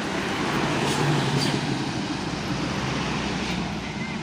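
A large bus passing close by, its engine hum and tyre noise rising to their loudest about a second in, then staying steady.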